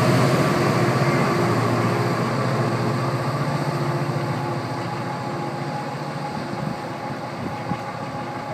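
NJ Transit PL42AC diesel-electric locomotive pushing its Comet V train away from the platform: a steady engine drone and wheel noise that gradually fade as it recedes, with a couple of faint clicks near the end.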